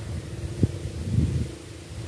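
Wind buffeting the microphone: a low, gusting rumble with a single sharp knock about half a second in.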